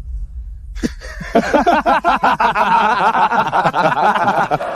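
Several people laughing together in mocking laughter, their overlapping voices pulsing quickly, starting about a second in.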